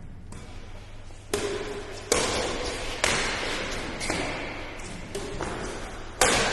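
Badminton rackets hitting a shuttlecock in a rally: about six sharp hits roughly a second apart, each trailing off in the hall's echo. The strongest come about a second and two seconds in and near the end.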